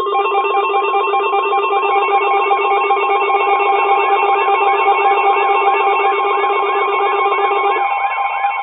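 Several emergency alert tones sounding at once: a layered chord of steady tones under a warbling tone that rises and falls about four times a second. The lowest steady tone cuts off near the end.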